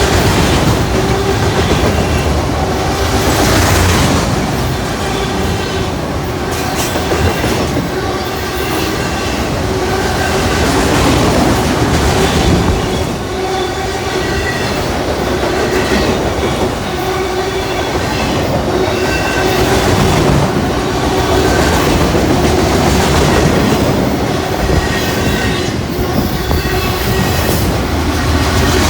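Long freight train's cars rolling past at speed, a steady rumble with wheels clattering over the rail joints.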